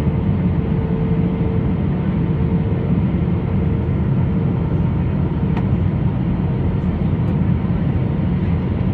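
Airbus A320-214 airliner noise: a steady low roar of engines and airflow, unchanging throughout, with a faint steady hum that fades out about five seconds in.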